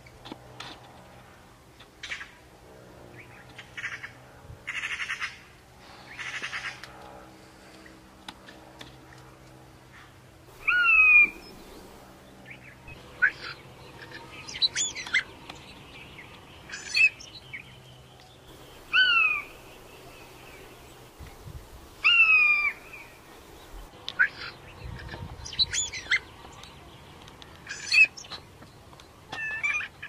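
Several birds calling and chirping. Scattered short, harsh calls come first; from about a third of the way in, a loud, sharp, downward-sliding call repeats every few seconds, mixed with quick high chirps.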